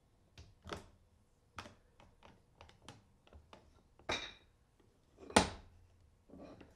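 A run of light wooden taps and clicks, then two harder wooden knocks about four and five seconds in, the second the loudest: a small wooden mallet striking the freshly assembled hickory-handled dovetail mallet.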